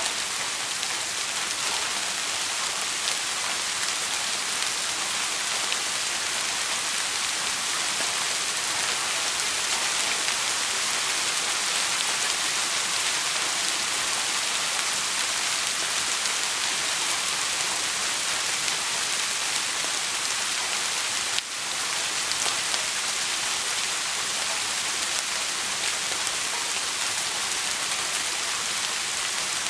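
Steady rain falling, an even hiss of drops with no thunder, briefly dropping out for a moment about three quarters of the way through.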